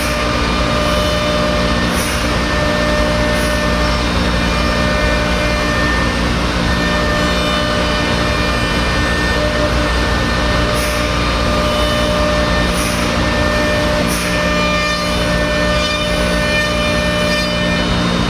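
5-axis CNC router running, its spindle and bit milling a large block: a steady machine noise with several constant tones, and a few faint brief high ticks now and then.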